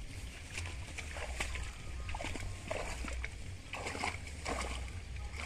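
Hands splashing and sloshing in shallow muddy water thick with water plants, groping for fish, in a string of small irregular splashes.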